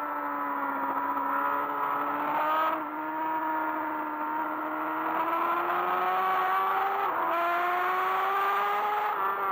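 BMW S1000RR's inline-four engine at track speed, heard onboard. Its note holds low through a corner, then rises as the bike accelerates out. About seven seconds in it drops sharply at an upshift and starts climbing again.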